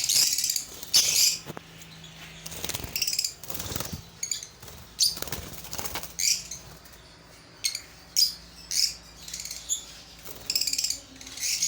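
Parrots calling in short, high-pitched chirps, repeated many times, with flurries of wing-flapping in the middle.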